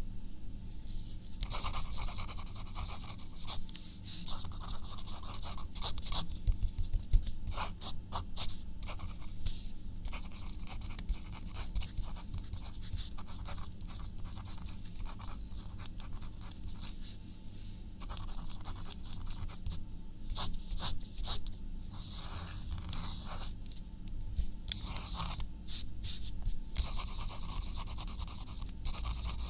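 Handwriting: a writing tip scratching across a surface in irregular runs of short strokes, with a few brief pauses.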